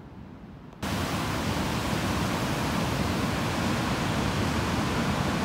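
Ocean surf, a steady even rush of noise that cuts in suddenly about a second in.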